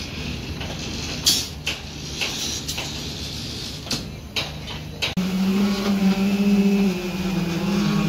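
Scattered sharp metallic clinks from rebar-tying work, steel bars and hand tools knocking, over a steady low drone. About five seconds in, this gives way abruptly to a louder, steady engine drone whose pitch wavers slightly.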